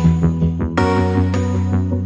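Background music with sustained chords; a new chord comes in under a second in.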